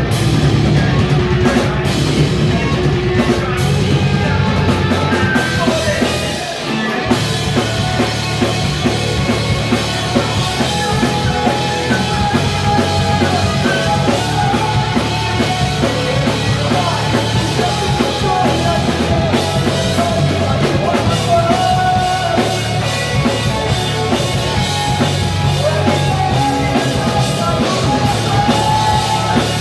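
Live rock band playing loud: electric guitars, bass guitar and drum kit, with a vocalist singing into a handheld microphone. The bottom end drops out briefly about six and a half seconds in, then the full band comes back in.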